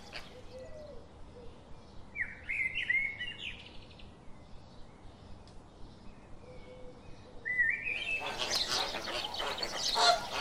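A few short high chirps from a small bird about two seconds in and again near seven and a half seconds, then from about eight seconds a flock of flamingos breaks into loud, dense honking calls.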